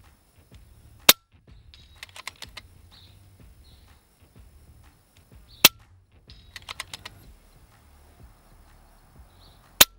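Three shots from a silenced FX Crown Mk2 .177 PCP air rifle, each a sharp crack about four and a half seconds apart. About a second after each of the first two comes a quick run of five or six light clicks.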